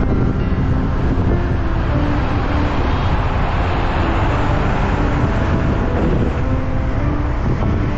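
Steady wind rush over a helmet-mounted action camera's microphone on a moving motorbike, mixed with engine and road noise. Faint background music notes sit under it.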